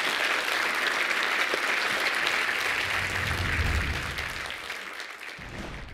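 Audience applauding, steady at first and dying away over the last two seconds.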